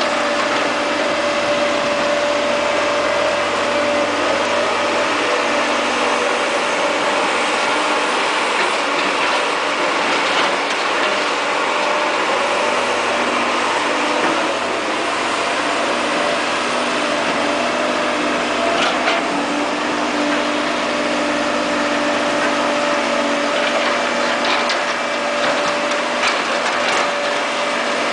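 Caterpillar E240B hydraulic excavator running steadily under a constant pitched whine, with a few short clicks and knocks in the second half.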